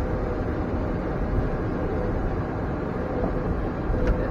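Steady low rumble and hiss of cockpit noise in an Embraer E175 jet taxiing, with a faint hum.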